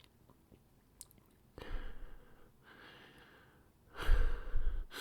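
A person's heavy, unsteady sighs and breaths, the loudest about four seconds in: the breathing of someone upset and grieving.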